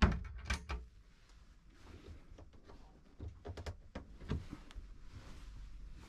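Push-button latch on a wooden cabin locker door clicking sharply, followed by a couple of lighter clicks. A few more light clicks and knocks of wooden joinery come about three and a half to four seconds in.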